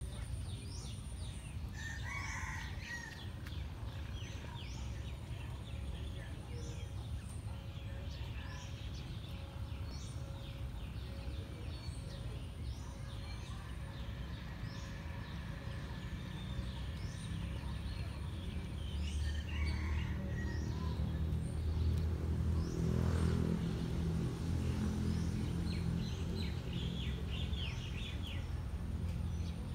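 Small birds chirping over and over, with a rooster crowing twice, once a couple of seconds in and again about two-thirds of the way through. A low rumble swells after the middle and eases off near the end.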